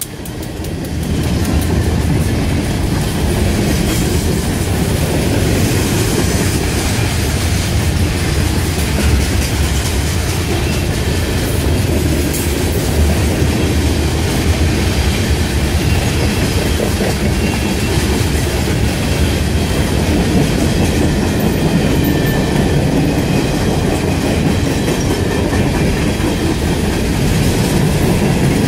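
Freight train rolling past at close range, its cars' wheels clacking over the rail joints in a steady loud rumble that swells about a second in.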